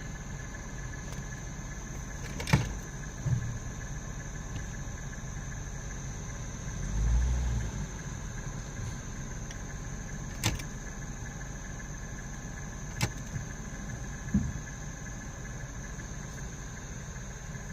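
Dodge engine idling steadily, broken by a few irregularly spaced sharp knocks and one louder low thump about seven seconds in. This is typical of the random misfire (code P0300) that the engine still has after a tune-up.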